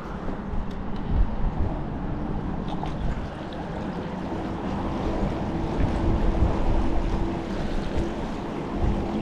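Wind buffeting the microphone over water noise, with the faint steady hum of the electric outboard motor pushing the inflatable skiff against the current.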